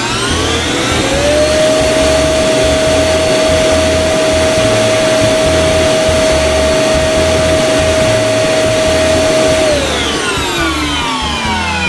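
Neabot robot vacuum's auto-empty charging station running its suction motor to pull dust into the paper bag. It spins up with a rising whine, holds a steady, loud whine and rush of air, then winds down about ten seconds in.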